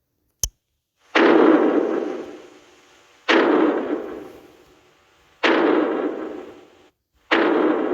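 Godzilla-style monster footstep sound effect: four heavy booms about two seconds apart, each hitting suddenly and dying away over a second and a half, after a short click.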